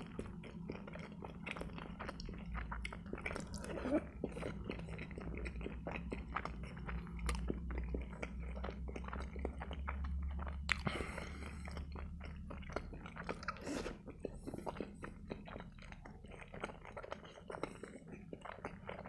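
Close-miked chewing of soft boiled pelmeni: a steady stream of small wet clicks and mouth sounds over a low hum.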